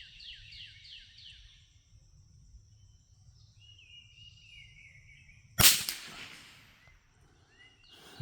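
A single shot from a Brno Model 1 .22 LR rifle about five and a half seconds in, sharp and followed by a short echo. Before it, birds call with a run of quick falling chirps, over a steady high insect drone.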